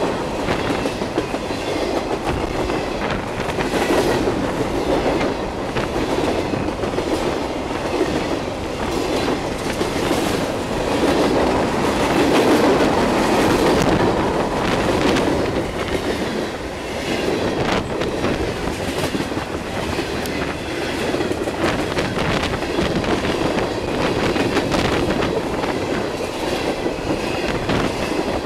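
Freight cars of a mixed train (autoracks, tank cars) rolling past close by at speed. A steady rolling rattle, with the wheels clicking over the rail joints again and again.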